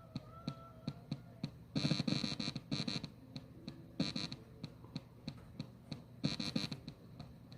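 Spirit-box sweep from the Spiritus app: rapid chopped fragments of sound, about three short chops a second, with louder, denser bursts every second or two, over a steady hum.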